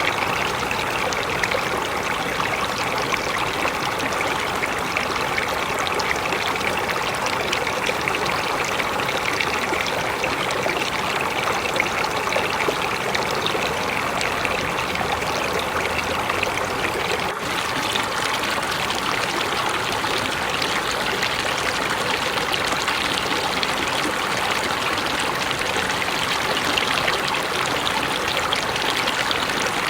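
A mountain river flowing, a steady rush of water over rocks.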